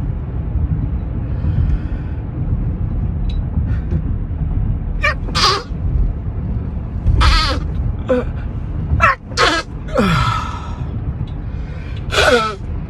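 A person giving a run of short sneezes and gasps, about seven in all, some ending in a high squeak that falls in pitch, brought on by tickling the nose. A steady low rumble runs underneath.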